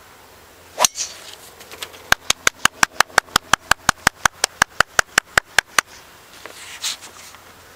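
Golf driver striking a teed-up ball: one sharp crack about a second in. A little later comes a fast, even run of about twenty clicks, some six a second, lasting nearly four seconds.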